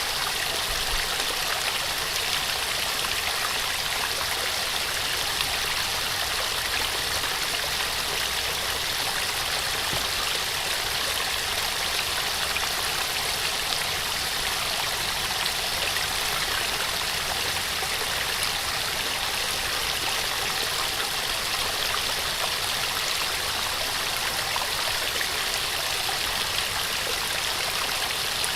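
Small waterfall splashing and rushing steadily, an even wash of falling water with no change in level.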